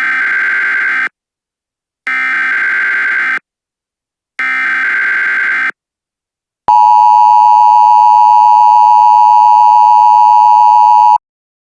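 Emergency Alert System tones: three short buzzing bursts of SAME header data, each about a second long with a second of silence between, then the steady two-tone attention signal for about four and a half seconds, cutting off sharply.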